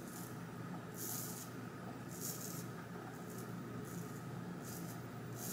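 Scissors snipping through long straight wig hair as layers are cut into it: about five short, crisp snips, roughly one a second, over a faint steady hum.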